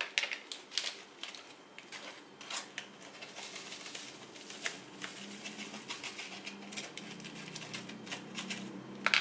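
Small square diamond-painting drills rattling and sliding across a plastic tray as it is tilted and shaken, with many sharp little clicks.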